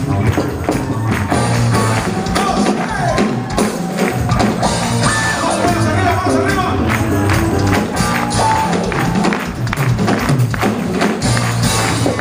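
Music with a steady percussion beat and some singing.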